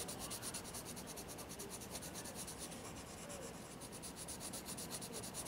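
Colorless blender pencil rubbed over colored pencil on paper in rapid back-and-forth strokes, a soft scratchy rasp as it blends yellow into blue. The strokes grow fainter after about three seconds.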